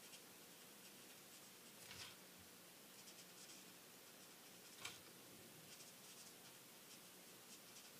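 Faint scratching of a felt-tip marker nib on cardstock while colouring in the tips of flower petals: a string of short strokes, the loudest about five seconds in, over a low room hum.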